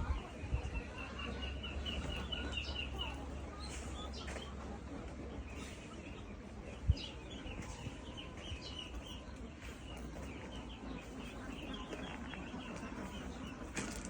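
Poultry calling in several quick runs of high, chirping notes, with a single sharp knock about seven seconds in.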